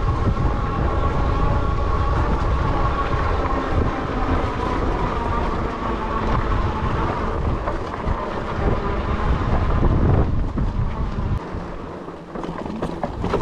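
Strong wind buffeting the microphone over the rumble and rattle of a fat-tyre electric bike rolling over a rocky dirt trail. A steady whine from the bike's electric motor runs under it and fades out about ten seconds in.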